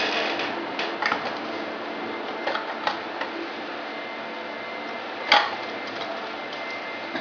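Steady hiss of room noise with a faint hum, broken by a few light clicks and taps: two close together about a second in, two more around two and a half to three seconds, and the loudest, sharpest one a little after five seconds.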